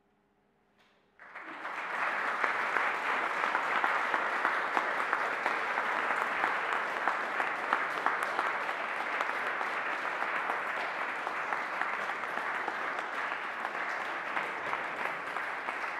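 Audience applauding, breaking out suddenly about a second in and continuing as a steady clatter of many hands clapping.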